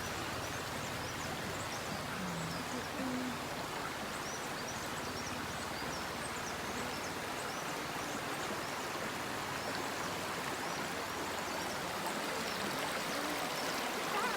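Steady rush of a clear, rocky stream flowing, with many small high chirps throughout and a few short low tones about two to three seconds in.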